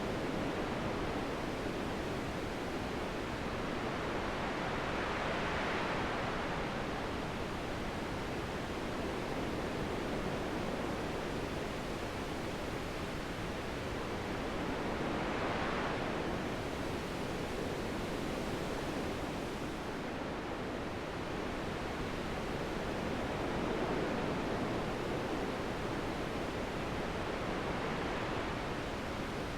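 Steady wind noise, swelling into three slow gusts that rise and fade again.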